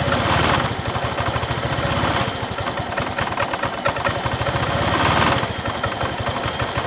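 Honda Vario scooter's single-cylinder, liquid-cooled engine running at a steady idle, swelling slightly twice. The cam chain rattle is gone, the stretched cam chain now taken up by a 10 mm nut added behind its tensioner.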